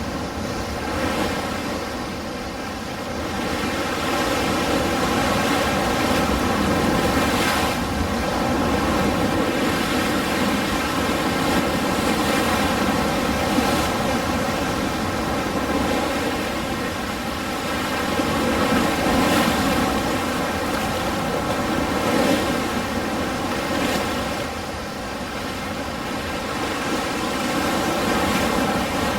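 Ocean surf washing continuously, swelling and easing every few seconds as waves break and roll in.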